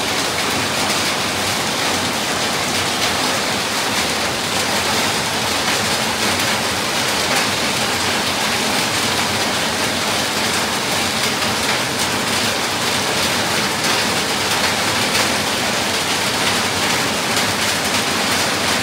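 Fairly heavy rain falling steadily onto a wet paved temple courtyard, a dense, even hiss.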